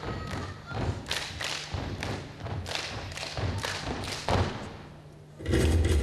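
A dance troupe's stomp-style percussion: rhythmic thumps and taps, several beats a second. Near the end a louder, fuller sound swells in.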